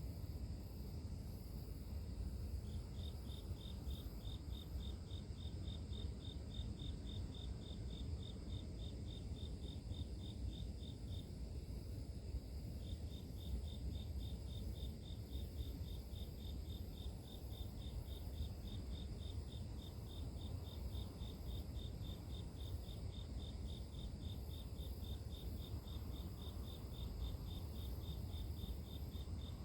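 Crickets chirping in an even, regular pulse train of about four to five chirps a second, which breaks off for a moment near the middle and resumes, over a steady high insect trill and a low rumble.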